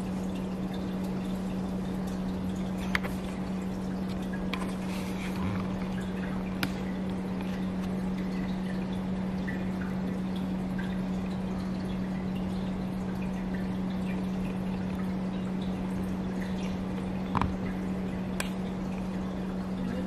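Steady low hum over an even hiss, with a few light clicks and taps scattered through it.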